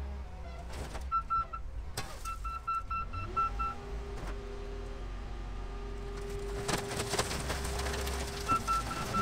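Heavy diesel machinery working a car crusher: a steady engine rumble that rises in pitch about three seconds in and holds there under load. A back-up alarm beeps in quick pulses in short spells, and there are a few sharp cracks of metal as the full-size Ford Bronco's body gives way.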